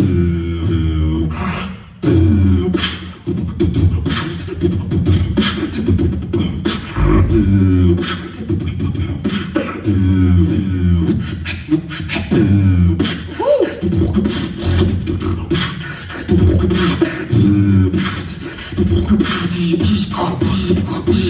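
Human beatboxing: a hummed bass line of downward-sliding notes under sharp drum-like clicks and snares, in a loop that repeats about every two seconds.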